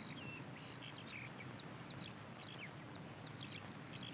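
Faint birdsong: many short, high chirps and whistles from small birds, over a steady hiss.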